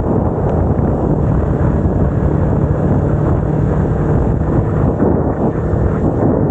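Wind rushing over the microphone of a moving Kawasaki Ninja 250R, with the bike's parallel-twin engine running underneath.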